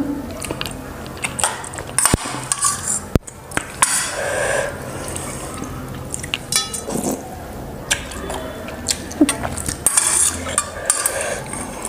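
Metal spoon clinking and scraping against a stainless steel bowl of instant noodles, with the noodles slurped and chewed close to a clip-on microphone. Several sharp clinks stand out, the strongest about two and three seconds in.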